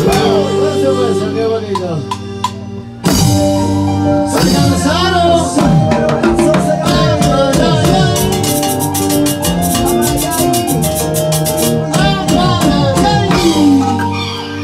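Amplified live band music from keyboard, guitar and drum kit, full of falling, sliding notes over steady bass, with rapid high percussion. The music thins briefly, then the full band comes back in about three seconds in.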